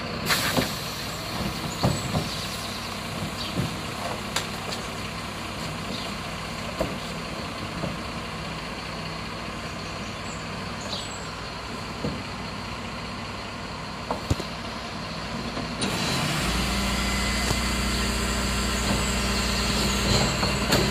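Refuse collection truck's diesel engine idling, with scattered knocks and rattles from a large four-wheeled wheelie bin rolled over block paving. About sixteen seconds in, the engine note rises to a louder, steadier hum.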